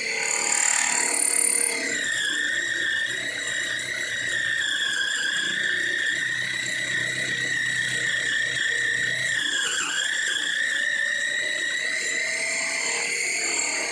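Zhengrui mini lathe drilling into a solid copper rod with no pilot hole: a steady high-pitched squeal from the bit cutting the copper, louder for the first couple of seconds. Its pitch dips briefly about ten seconds in and climbs again near the end.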